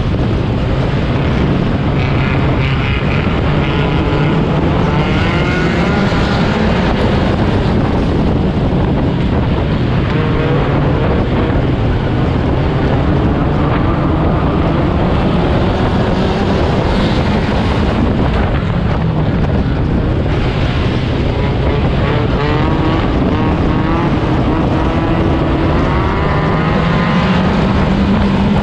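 Four-cylinder Stinger 8 figure-8 race car engine running hard, its pitch rising and falling over and over as the car accelerates and lifts through the turns, with other race cars running close by.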